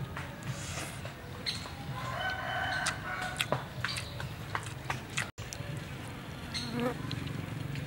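A rooster crowing once, about two seconds in, over scattered clicks of a spoon against a dish.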